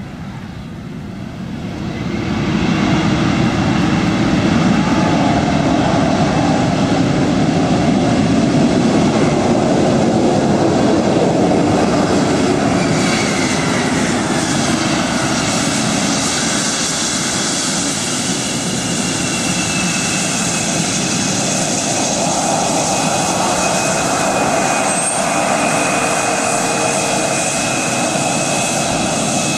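Embraer E-Jet airliner landing on a wet runway: its jet engines swell to a loud rush about two seconds after touchdown, typical of reverse thrust, mixed with the hiss of spray thrown off the wheels. The rush eases a little after the middle, leaving a steady engine whine as the jet slows.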